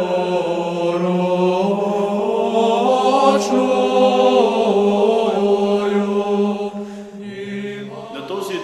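Orthodox liturgical chant: voices sing a slow melody over a low held note. About seven seconds in, the singing drops quieter and changes.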